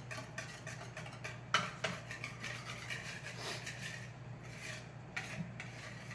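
A whisk stirring brownie batter in a mixing bowl: irregular scraping and light clicks against the bowl, with a sharper clink about a second and a half in.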